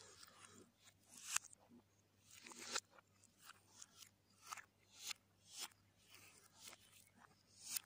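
Faint eating sounds played in reverse: wet chewing and mouth noises while fingers work food through chickpea curry, a short stroke about every half second to a second, each one swelling and then cutting off.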